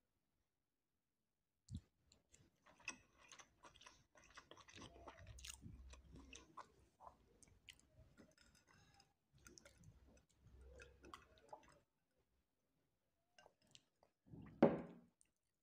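Close-miked chewing of a spoonful of kabsa rice: many small wet clicks and crackles for several seconds, then a pause. Near the end comes one much louder gulp as a drink is taken from a glass.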